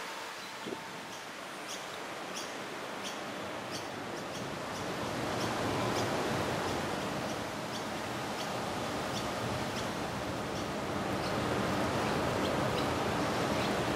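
Outdoor garden ambience: a steady rushing noise that swells about five seconds in and again near the end, with small high chirps repeating at an even pace, about one and a half a second.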